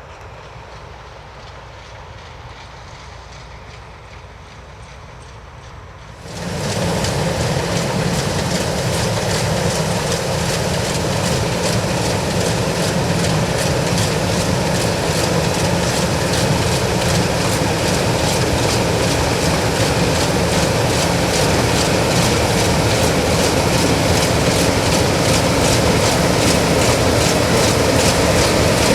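New Holland CX8090 combine harvester on Poluzzi crawler tracks running: a steady machine hum, which about six seconds in suddenly gets much louder and turns into a dense, steady noise with a fast clatter running through it.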